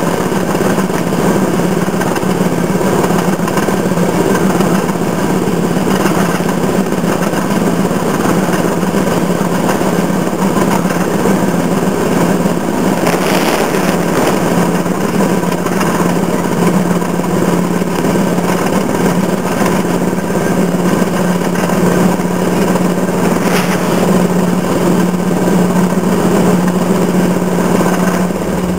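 Railroad motorcar (speeder) running steadily along the track, its small engine droning under a constant rattle of the car on the rails. A brief louder clatter comes about halfway through and again near the end.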